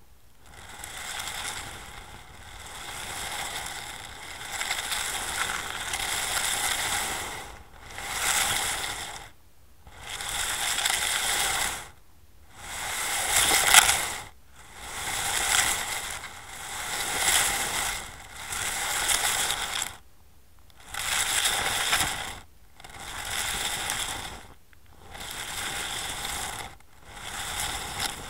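Underwater camera housing on a fishing lead dragged and bumped over a shingle and broken-shell seabed, a gritty grinding and crunching that comes in surges about every two seconds with short lulls between, as the line lifts and drops the lead.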